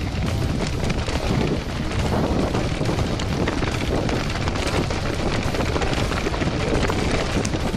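Wind rushing over the camera microphone with the rumble and rattle of mountain bike tyres and suspension running down a rocky, leaf-strewn trail, dotted with many small knocks as the wheels hit stones.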